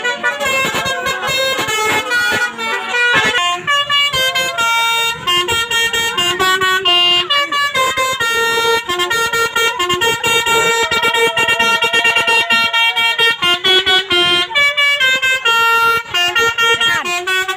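Bus telolet horn: a multi-tone air horn on an Indonesian bus playing a melody. It sounds several notes at once, in rapid stuttering blasts, and steps from note to note throughout.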